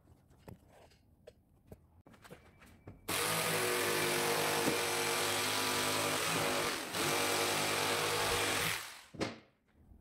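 An electric jigsaw cutting MDF board: a few light knocks as the work is handled, then about three seconds in the saw starts and runs steadily through the cut, dipping briefly near seven seconds, and winds down just before nine seconds.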